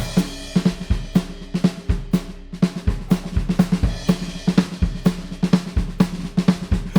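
A rock drum kit playing a steady beat on its own: kick drum, snare and hi-hat in an even rhythm.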